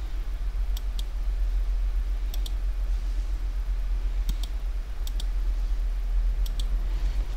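Computer mouse buttons clicking, in quick pairs about five times, over a steady low hum.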